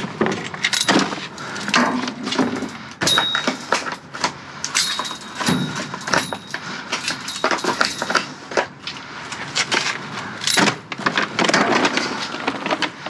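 Plastic food packaging and containers rustling, crinkling and clattering as they are handled and sorted through in a dumpster, in a dense run of irregular clicks and knocks.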